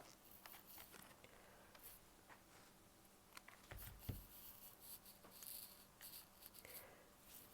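Near silence: room tone with faint rustles and light clicks, and a soft thump about four seconds in.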